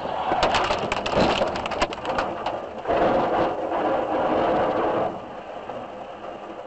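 Road collision heard from a following car's dashcam: a minibus and a car smash together, with a rapid run of crunching cracks as debris scatters over about two seconds. A couple of seconds of louder steady noise follow, easing off near the end.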